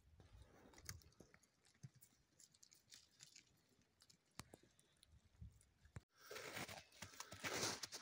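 Sheep grazing close by: faint tearing and crunching as it pulls at dry grass, with scattered small clicks. About six seconds in, the sound drops out for a moment and a louder rough rustling noise begins.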